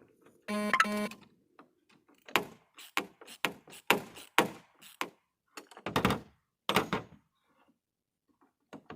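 A dozen or so sharp metallic clicks and knocks over about five seconds: hand tools working the light-bar bracket bolts on the roof gutter. About half a second in, a short electronic beep sounds twice.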